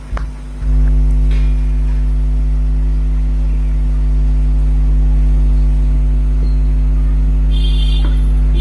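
A loud, steady low hum with a buzzing edge, holding unchanged after a brief dip in the first second.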